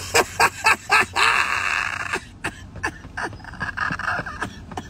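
A man laughing in a quick run of short bursts, then a long breathy rush of air, then scattered small clicks and rustles.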